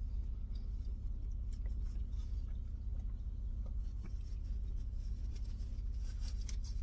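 Steady low rumble of a car engine idling, heard from inside the cabin, with a few faint small clicks over it.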